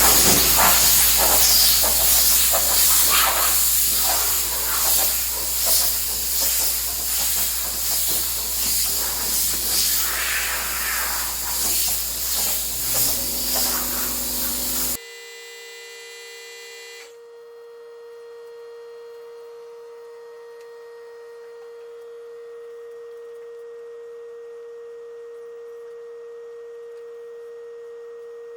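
Loud hissing noise with a steady low hum under it, wavering in level, which cuts off abruptly about halfway through. It gives way to a faint, steady single pitched tone that holds to the end.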